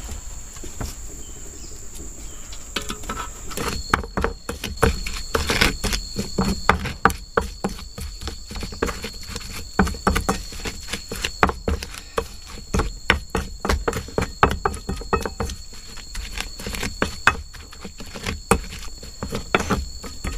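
Insects, crickets or cicadas, trilling steadily, with a second steady trill joining about four seconds in. Over it, a dense irregular run of close clicks and knocks, the kind made by handling things at a camp kitchen.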